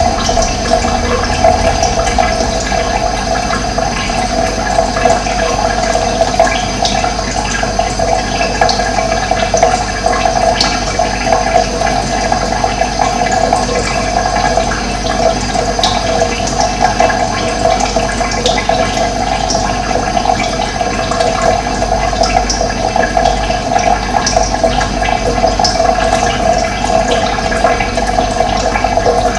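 Running water flowing steadily, a constant rushing, gurgling wash.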